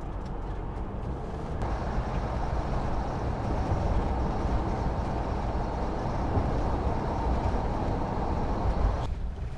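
Motorhome driving on the motorway, heard from inside the cab: steady road and engine noise. It grows louder about one and a half seconds in and drops away abruptly near the end.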